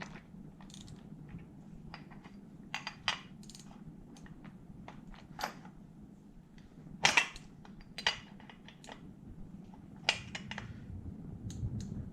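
Scattered sharp knocks and clicks of hand tools and metal parts during the teardown of a Honda NSR50 engine, the loudest a double knock about seven seconds in.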